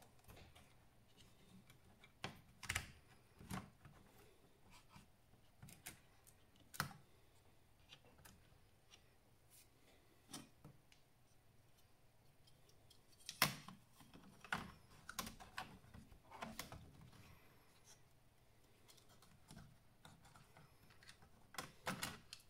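Quiet, irregular clicks and taps from hands working on an HP 625 laptop, with scattered sharp ticks and a few short clusters about three and thirteen seconds in and again near the end.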